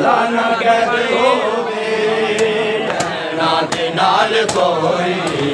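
A crowd of men chanting a Punjabi noha (Shia lament) together, many voices overlapping. A few sharp slaps cut through in the middle of it.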